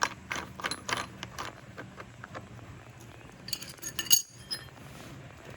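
Small metal parts clicking and clinking as a new drive wheel is fitted onto a Husqvarna Automower 115's axle: the hardware is handled in light clicks, then a cluster of louder ringing clinks comes about four seconds in.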